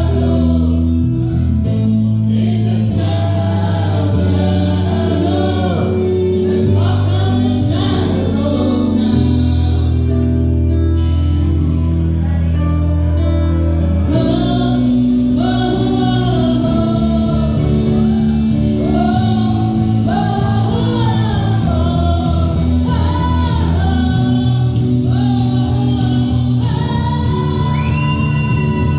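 Karaoke duet: a woman and a man singing into microphones over a loud backing track, with a long held high note near the end.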